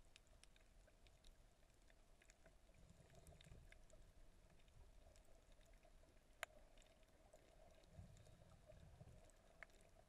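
Near silence: faint underwater ambience picked up by the camera, with scattered small clicks and crackles and soft low rumbles of moving water. One sharper click comes about six seconds in.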